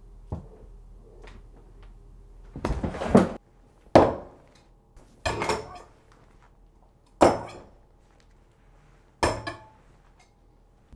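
Metal desk lamp clanking: five bouts of sharp metallic knocks a second or two apart, some a quick double or triple hit with a brief ring.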